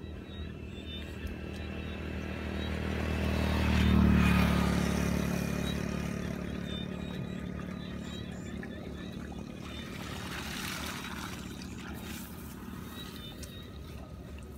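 Engine of a passing vehicle, getting louder to its peak about four seconds in and then slowly fading away.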